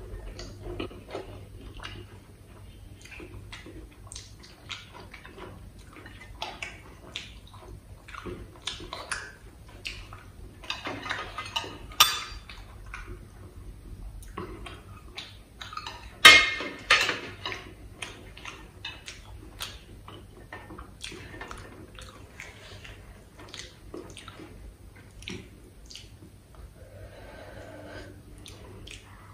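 Close-miked clicks, clinks and wet squishing of fingers working soft food in stainless-steel bowls on a steel thali, with two loud clanks of steel bowl against steel plate about halfway through.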